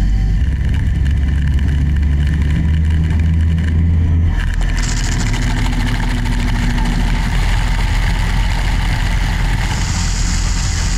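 CNC mill-turn lathe turning a cast-iron part with a 95-degree insert tool held in its upper spindle: a steady low machine rumble under the hiss of cutting. A higher hiss comes in briefly about five seconds in and again near the end.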